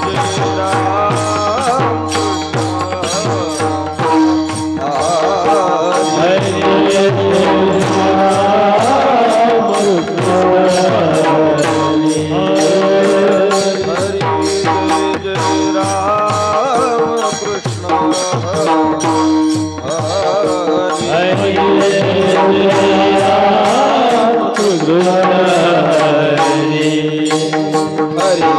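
Devotional kirtan music: a hand drum plays under a fast, steady beat of small hand cymbals, with a sustained melody held above them.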